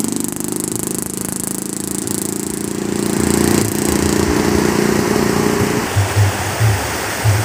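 A small engine running steadily, getting louder about three seconds in and stopping about six seconds in, followed by a few low thumps.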